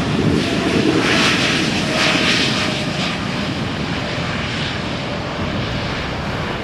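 Jet airliner's engines, a loud rushing noise that is strongest in the first few seconds and then slowly fades as the aircraft moves away.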